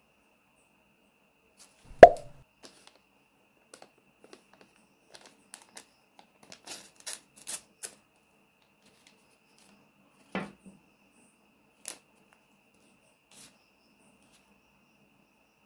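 Paper packets being torn open and crinkled by hand, with small clicks and taps of plastic toys and paper on the tabletop. A sharp knock about two seconds in is the loudest sound, with a second, softer knock later. A faint steady high tone runs underneath.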